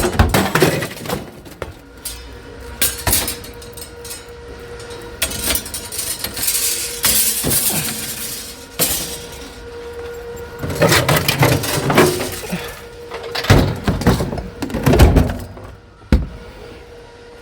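Discarded household junk being shifted and restacked by hand: irregular clunks, knocks, scrapes and clinks as items are pushed and set back onto the pile.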